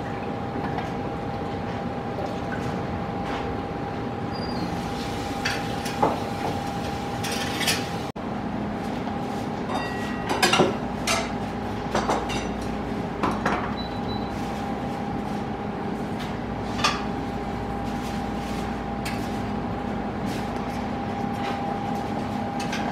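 Kitchen counter sounds: scattered light clinks and knocks of pots, bowls and utensils over a steady background hum.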